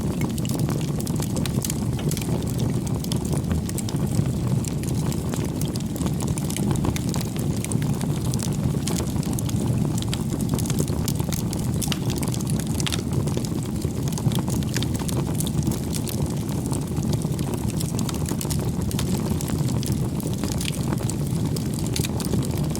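Campfire burning with a steady low rush and many small crackles and pops throughout.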